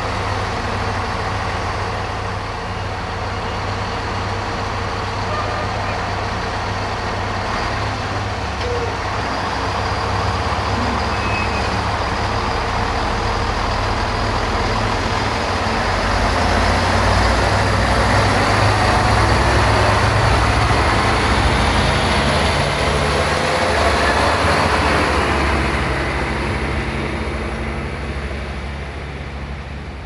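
Diesel engines of a three-unit Siemens Desiro DMU train running with a steady low hum as the train pulls away. The sound grows louder past the middle, then fades near the end as it moves off.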